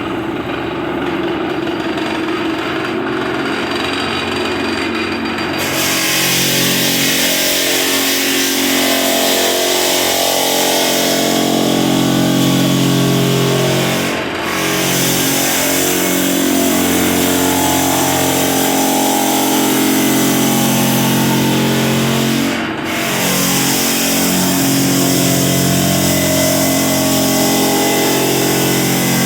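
Floor sander running steadily with a pitched motor hum while its sandpaper cuts through heavy varnish on a floor wetted with penetrating lubricant. About six seconds in, a loud sanding hiss joins the motor, and the sound briefly drops twice.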